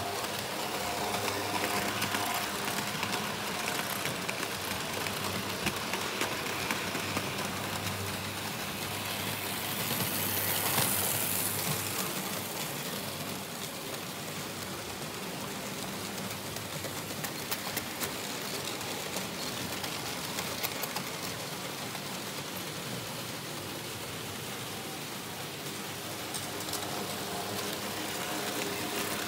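Märklin H0 model trains running on metal M track: a steady rattle of wheels clicking over the rails and points, under a faint hum from the locomotive motors. The sound swells about ten seconds in as a train passes close.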